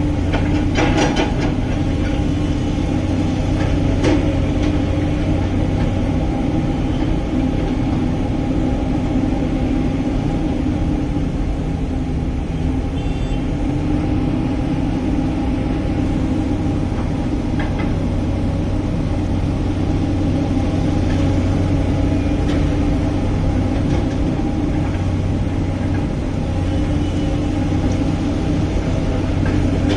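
An engine running steadily at an even speed: a constant hum with a few faint clicks in the first few seconds.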